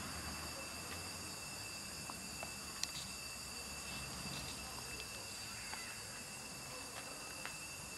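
Faint scattered crunching and clicking of two cats eating dry kibble from a plastic tub, over a steady background hiss with a continuous high-pitched whine.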